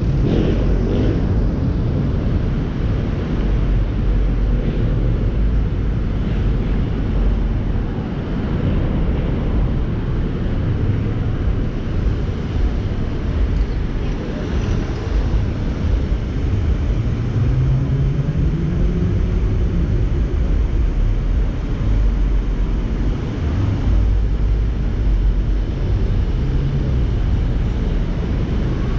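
Car driving through city traffic: a steady low rumble of engine and road noise, with an engine note rising in pitch about two-thirds of the way through.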